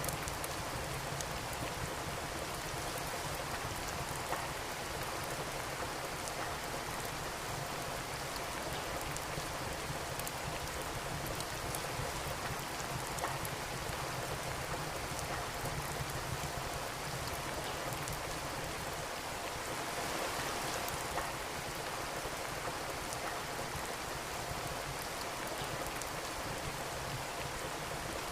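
Steady rain falling, with scattered sharp crackles of a wood fire burning in a fireplace.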